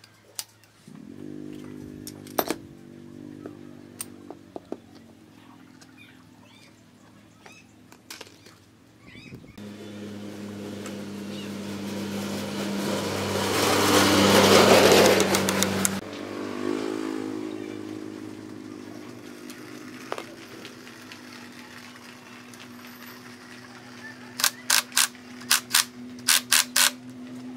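A small engine running with a steady hum, climbing to a loud peak about halfway through and cutting off suddenly, then running steadily again; near the end comes a quick run of about nine sharp metallic taps.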